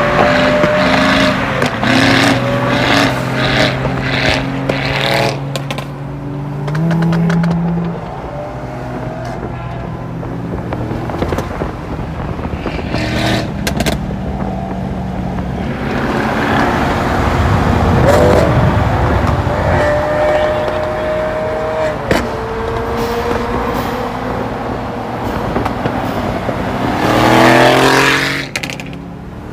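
Mercedes-AMG GT's engine and exhaust running and being revved, with a rough surge in the middle and a rising rev near the end that is the loudest moment.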